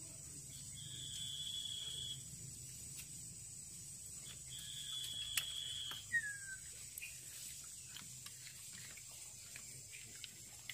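Small clicks and clacks of cooked clam shells being handled and pried open, the sharpest two about five and six seconds in. Behind them are two long steady high whistles of about a second and a half each, a short falling whistle, and a constant thin high whine.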